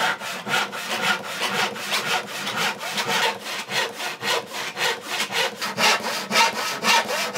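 Hand crosscut saw cutting across the grain of a glued-up wooden panel, in quick, even strokes of about four a second.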